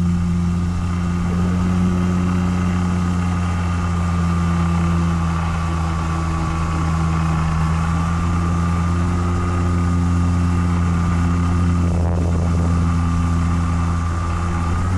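Motor and propeller of a radio-controlled model plane heard from a camera mounted on the plane in flight: a steady drone with a higher whine that drifts slightly in pitch, over a rush of noise.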